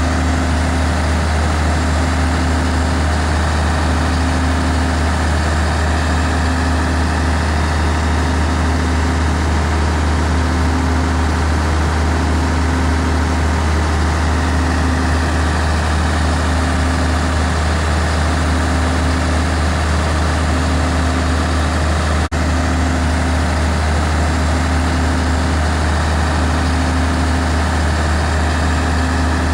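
Mack C-125 fire pumper's diesel engine running steadily under load, driving the pump while drafting, mixed with the rushing hiss of water shooting from the deck gun and hose stream. A faint low tone pulses about every second and a half.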